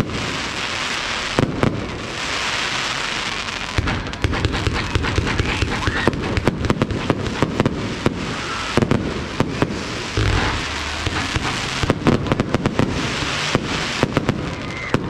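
Aerial fireworks display: a dense, continuous crackle with many sharp bangs, some coming in quick clusters.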